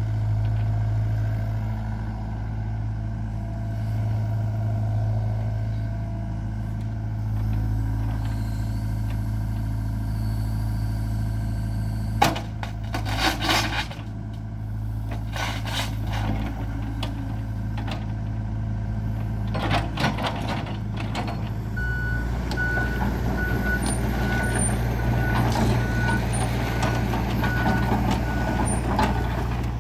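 John Deere 85G compact excavator's diesel engine running steadily while the boom, arm and swing are worked. A sharp knock about twelve seconds in, and short bursts of rattling through the middle. From about two-thirds through, the travel alarm beeps steadily, a little under twice a second, as the machine moves on its tracks.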